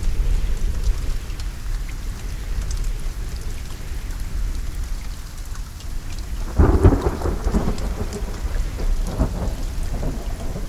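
Steady rain falling, with a continuous low rumble of thunder. A louder thunder peal breaks out about two-thirds of the way through, with a smaller one after it.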